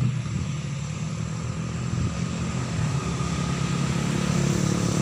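A steady low engine hum, slowly getting louder.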